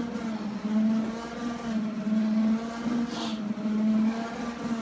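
Steady motor hum of a stair-climbing exercise machine, its pitch wavering slightly under the climber's steps. About three seconds in, a short hiss of breath through a full-face respirator mask.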